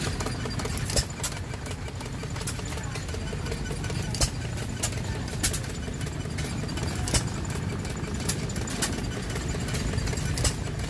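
Small antique hopper-cooled stationary gas engine running, belt-driving a thread braiding machine: a steady low running sound with sharp cracks that come irregularly, about once a second.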